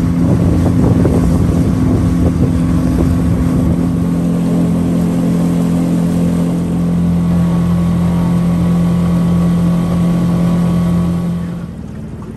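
Motor of a flat-bottomed aluminum fishing boat running steadily at speed, with water rushing along the hull. Near the end the engine note drops away sharply as the boat slows.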